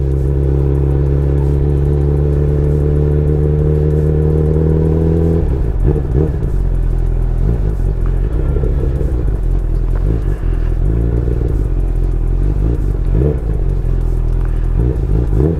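Honda CB1000R's inline-four engine running at a steady speed, its note rising slightly, then about five seconds in the steady note breaks off into lower, uneven running as the bike slows.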